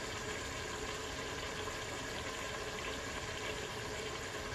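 Steady hiss of food cooking on a stovetop.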